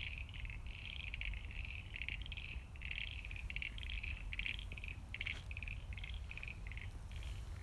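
Frogs calling at a pond, a run of short pulsed trills that keep repeating, over a low steady rumble.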